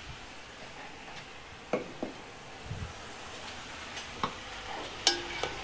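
Pork pieces sizzling steadily in a hot pan, with a utensil knocking and scraping against the pan a few times as they are stirred; the loudest knock, near the end, rings briefly.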